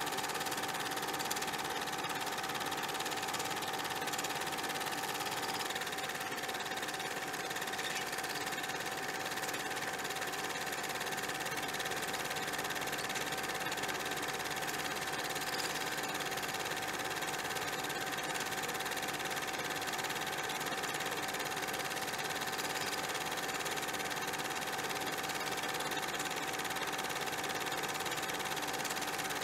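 A steady mechanical hum with a constant whine in it, unchanging throughout, over a background hiss.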